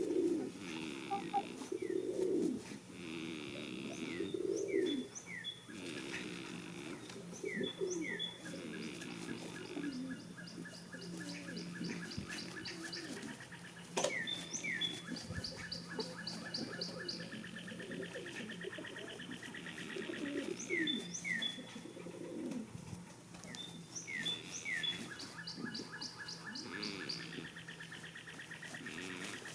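Small birds singing throughout, with repeated high trills and quick chirps. Underneath are irregular low breathy pulses from a sleeping goat snoring, and a faint steady low hum.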